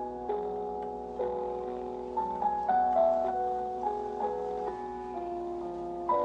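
Background keyboard music: a slow melody over held piano-like chords, with notes changing every half second or so.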